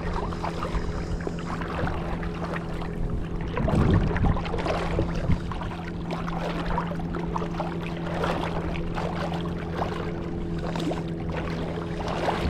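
A boat's motor humming steadily at one even pitch, with irregular water sloshing and splashing over it.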